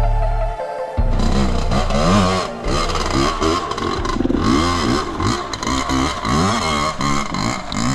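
Suzuki RM two-stroke dirt bike engine being ridden, revving up and falling back again and again as the throttle is worked.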